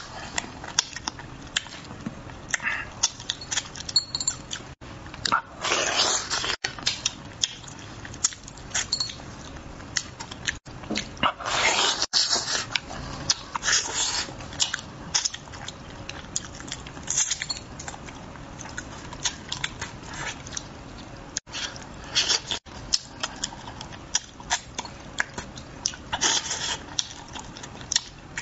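Close-miked mouth sounds of a man eating red-braised crucian carp: wet chewing and smacking with many short clicks, broken by several louder, drawn-out sips and slurps lasting about a second each.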